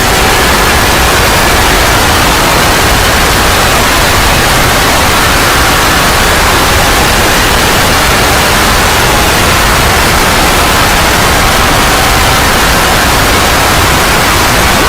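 Loud, steady static hiss, like white noise, filling the whole sound. Faint steady tones under it fade out just after the start and come back near the end.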